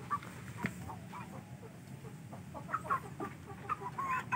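Chickens clucking in short, scattered notes, coming more often in the second half.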